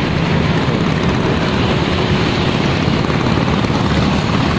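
Steady loud rumbling rush of wind buffeting the phone's microphone, mixed with the drone of road traffic crossing the bridge deck.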